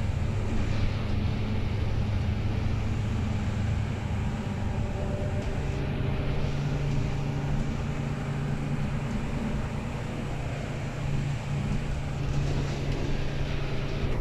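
Inside a moving Mercedes-Benz city bus: a steady low engine drone with tyre noise from the wet, slushy road.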